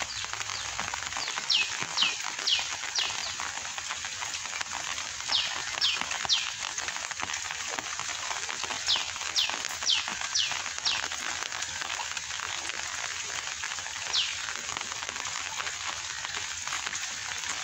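Steady rain falling on floodwater, with a bird's short, high, downward-sweeping calls in runs of three or four, a few seconds apart.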